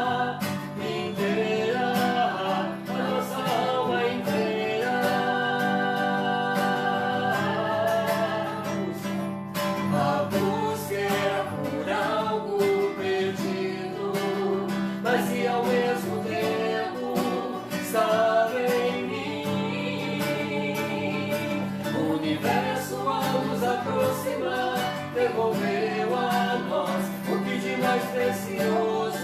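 Live song performance: singing voices over a plucked guitar accompaniment, with no clear words.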